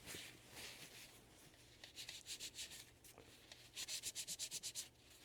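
Faint rubbing and scraping strokes of parts being handled at close range: a few strokes about two seconds in, then a quick run of about ten rapid strokes near the end.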